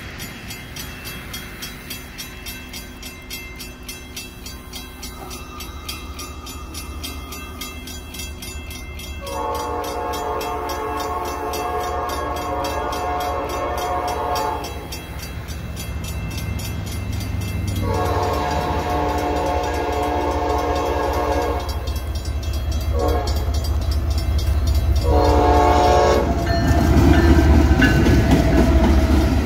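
Diesel locomotive air horn sounding the grade-crossing signal: two long blasts, a short one, then another long one. Beneath the horn, the train's rumble grows steadily louder as it approaches and is loudest near the end.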